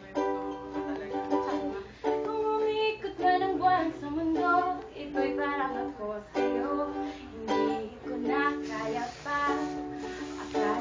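A woman singing to her own ukulele strumming, chords struck about every second under held, sliding vocal notes.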